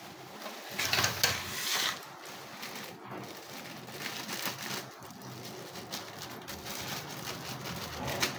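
Thin clear plastic crinkling and rustling as it is handled, loudest in a burst between about one and two seconds in, then lighter crackles.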